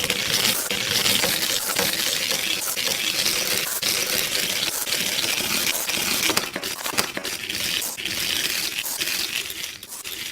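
Continuous rattling and clinking of small diecast metal toy trains against hard plastic track pieces, dense with small clicks, stopping just before the end.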